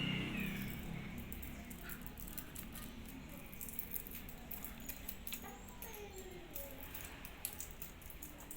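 Small clicks and rustling of a LAN cable and crimping tool being handled, irregular and faint over a low steady hum.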